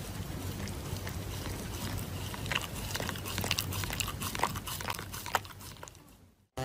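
A Shiba Inu chewing and tugging at a paper face mask: irregular soft crinkles and small clicks over a steady hiss, fading out near the end.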